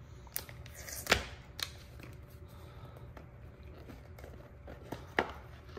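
Cardboard watch-box packaging being handled and opened: a few sharp knocks and clicks, the loudest about a second in with a short rustle, and two more near the end, over a low steady hum.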